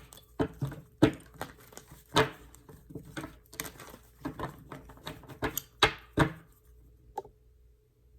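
Tarot cards being handled and laid out on a table: irregular clicks, taps and short card slides, stopping about seven seconds in.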